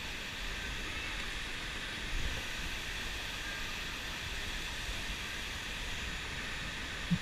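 Steady rushing of river water, an even hiss with no rhythm, with a couple of brief low bumps about two seconds in and at the very end.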